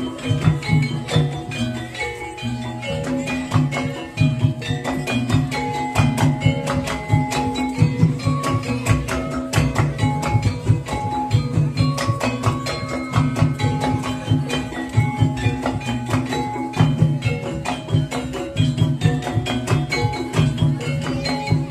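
Jaranan gamelan music: gongs and metallophones ringing out short repeating melodic patterns over a busy, continuous drum beat.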